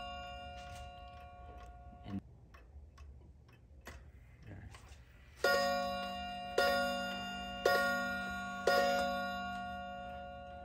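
Aikosha 30-day wall clock striking. The ringing of a strike dies away at first, with faint ticking of the movement. About halfway in come four strikes about a second apart, each ringing on and fading. The repaired strike train is working.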